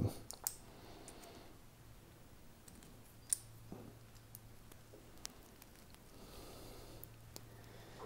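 Small plastic parts of a pull-cord light switch mechanism clicking faintly as they are handled and pressed together by hand: a few sparse light clicks, the sharpest about three seconds in.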